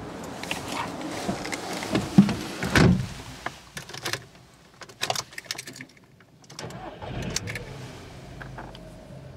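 Clicks and handling knocks, then the 2009 Volkswagen Polo's 1.2-litre three-cylinder petrol engine is started and settles into a steady idle in the second half.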